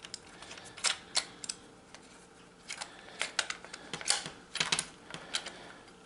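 Irregular light clicks and clinks of small hardware and hand tools being picked up and set down, about a dozen, the loudest a little after four seconds in.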